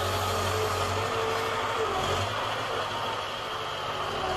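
Diesel engine of a crane-equipped logging truck running steadily at idle, with a faint wavering whine over it; the low engine hum drops away a little past two seconds in.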